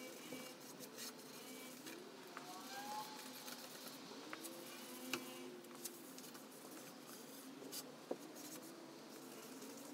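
Folded cotton rag wiping wet oil-and-varnish finish onto a sanded wooden board: a soft, faint rubbing and scuffing, with a few light ticks.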